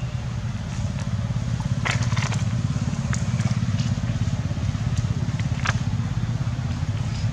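Low, steady rumble of a running motor, with a few sharp crackles between about two and six seconds in.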